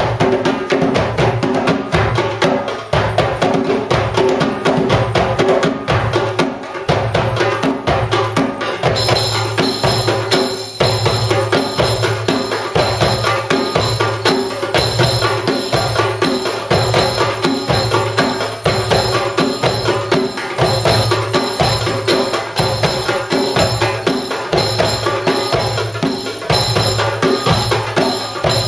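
Ensemble of darbukas and other hand drums playing a steady, driving belly-dance rhythm. About nine seconds in, bright metallic jingling joins the drumming and carries on.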